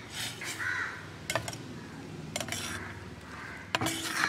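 Steel spoon stirring thick curry in a stainless steel pot: wet stirring with a few sharp clinks of metal against the pot.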